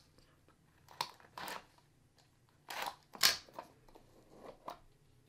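Hands handling and opening a small cardboard trading-card box: several short scrapes and rustles of cardboard, the loudest about three seconds in.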